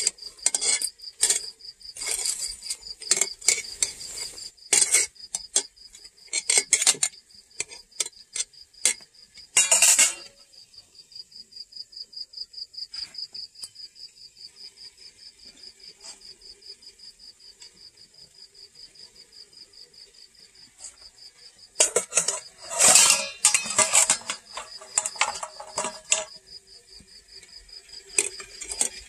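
A long metal spatula scraping and knocking against a metal cooking pot in bursts, through the first third and again about three-quarters of the way through. Under it, a cricket trills steadily with a rapid, even pulse.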